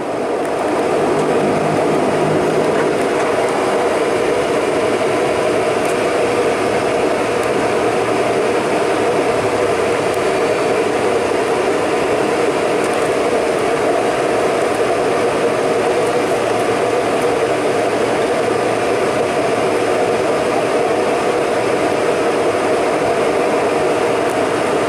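Bombardier Dash 8-300's Pratt & Whitney Canada PW123 turboprop engines and propellers running, heard from inside the cabin as a steady drone. The sound rises in over the first second and then holds level.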